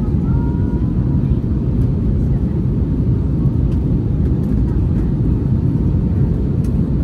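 Steady low rumble of an Airbus A320-200's cabin noise in flight, engines and airflow heard from a window seat over the wing as the plane descends.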